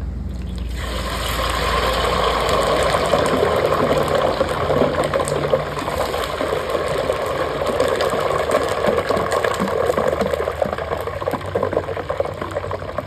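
Hot mustard oil in a large metal pot sizzling and crackling hard as it is tempered with salted water, which is poured in about a second in. A dense, steady spitting follows.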